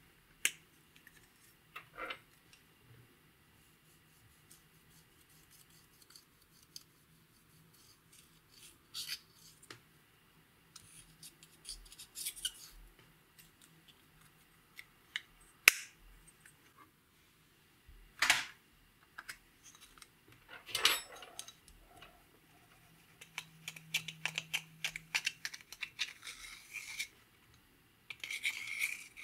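Plastic eyeshadow compacts clicking open and shut, with scratchy scraping and crumbling of pressed powder eyeshadow between the sharp clicks.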